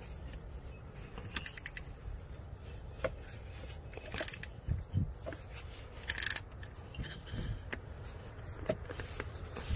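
Hand-tool handling on an alternator mounting bolt: scattered light metal clicks, clinks and scrapes of a ratchet and socket extension, with one sharper clink about six seconds in.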